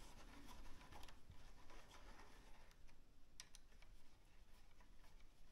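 Near silence with faint scratching handling noises and two light clicks about three and a half seconds in.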